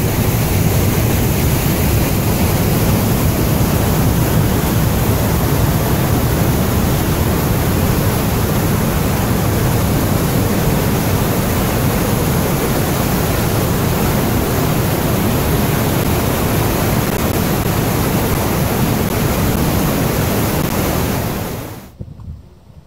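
River whitewater rushing and churning through a narrow rock channel: a loud, steady roar. It drops off abruptly near the end to a much quieter outdoor background.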